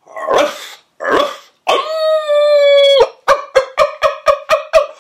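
A man imitating a dog: two short barks, then one long howl held at a steady pitch, breaking about three seconds in into a quick run of yips, about four a second.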